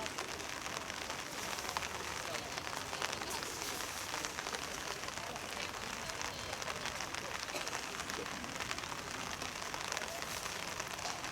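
Steady patter of rain, a hiss full of fine crackling drop clicks, with faint distant voices.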